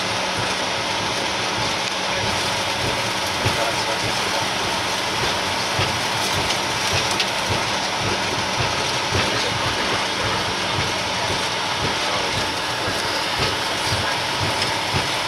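Cockpit noise of a Bombardier Global 6000 business jet rolling along a concrete runway after touchdown: a steady rush with light, irregular thumps as the wheels run over the slab joints.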